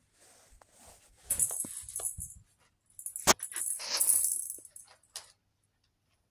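Kittens scrambling in and around a nylon pop-up cat tunnel, the fabric rustling in two bursts with a sharp tap about three seconds in.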